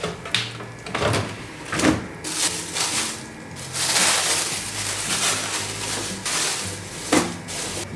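Plastic bags of chopped vegetables and chicken rustling and crinkling as they are packed into a freezer drawer. Several knocks from the plastic drawers of a fridge-freezer being pulled open and pushed shut, the loudest a little after seven seconds.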